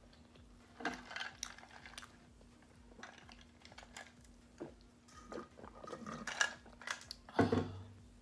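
Close-up eating mouth sounds: irregular chewing, smacking and swallowing, with a few light clicks. The loudest comes near the end.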